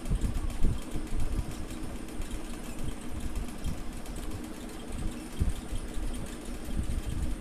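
A steady mechanical hum, like a small motor running, with irregular low thumps and faint ticking over it.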